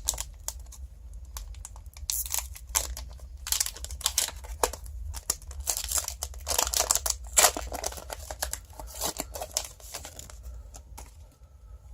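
Foil Pokémon TCG booster pack wrapper being torn open and crinkled by hand, in irregular crackling bursts over a steady low hum.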